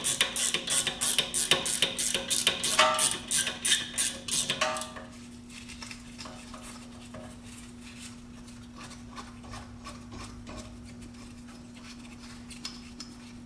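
A 13 mm ratcheting wrench clicking rapidly, about four clicks a second, as a rear brake caliper slide bolt is spun out; the clicking stops about five seconds in, leaving faint light metal ticks over a steady low hum.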